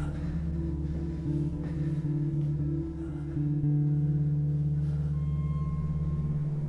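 Film score: a low, sustained drone of held deep notes that shifts slightly partway through.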